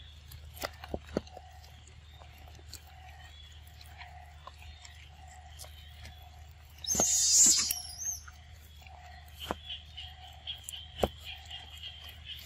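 Macaques chewing and biting into leaves and fruit: scattered sharp clicks and crunches. A louder rasping burst lasts about a second halfway through. A steady low hum and a faint repeating chirp run underneath.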